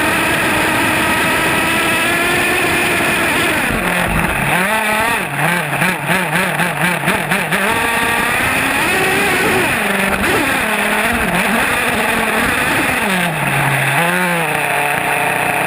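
HPI Savage X SS Nitro RC truck's small two-stroke nitro engine running close up, revving up and down as the truck drives. In the middle it blips rapidly on and off the throttle, then rises and falls again near the end.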